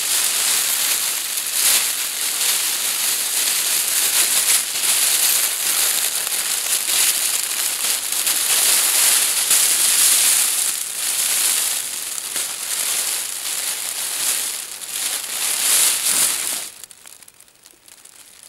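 Foil space blanket crinkling and rustling loudly as it is pulled over a person's head and wrapped around the body, a dense unbroken crackle that stops suddenly near the end.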